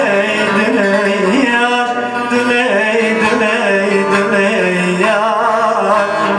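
Man singing a Turkish folk song (türkü) in a long, ornamented line with wavering pitch, accompanied by a bağlama (long-necked saz).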